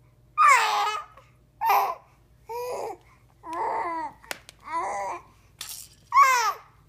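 Baby babbling and cooing: about seven short, high-pitched vocal sounds with sliding pitch, separated by brief pauses.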